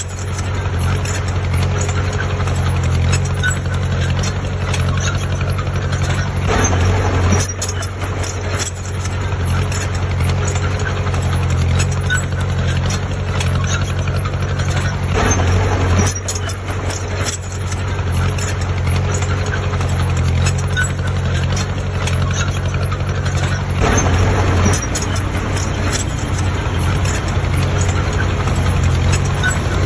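A heavy diesel engine of a construction machine running steadily with a deep hum, with scattered clicks and knocks over it.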